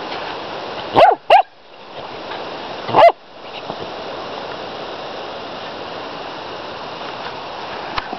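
Rough collie puppy barking: two quick barks about a second in, then a third about two seconds later.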